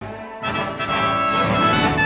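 Background music starts suddenly, full and loud, with brass-like instruments.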